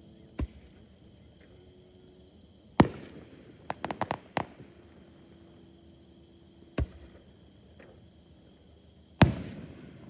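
Fireworks going off. Two loud bursts, about three seconds in and near the end, each trail off in a rumble. Between them come a few smaller single bangs and a quick run of crackling pops around four seconds in.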